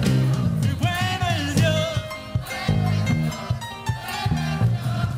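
Live praise music from a church band: bass notes and drum beats under a singer's voice that comes in about a second in.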